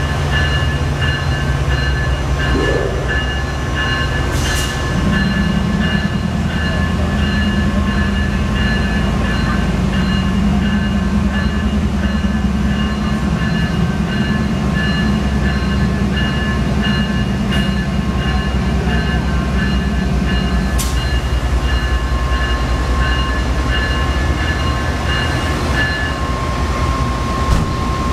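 GE P42DC diesel locomotive's V16 engine running loud and steady as the locomotive moves slowly up the track; its note steps up about five seconds in and drops back about twenty seconds in. A steady, regularly repeating high ringing, the locomotive's bell, carries on over it until near the end.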